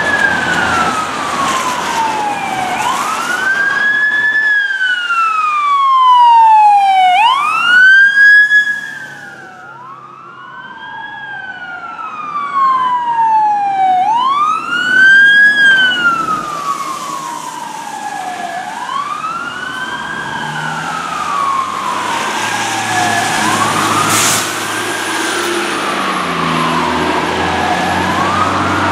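Fire truck sirens wailing, the pitch rising and falling about every five seconds. A second siren overlaps early on, and a low engine rumble comes in near the end.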